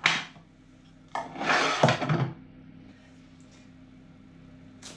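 A knock, then about a second of scraping and rubbing on a wooden chopping board as chopped cooked pears are pushed off it into a blender jar.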